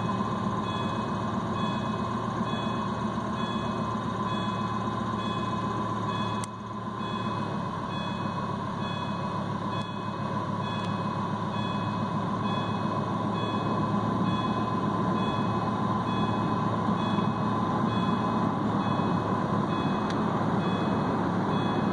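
Car engine idling steadily, heard from inside the cabin, with a thin steady whine above the engine note. The engine is at full operating temperature, coolant around 215°F, just short of the point where the electric radiator fan cuts in.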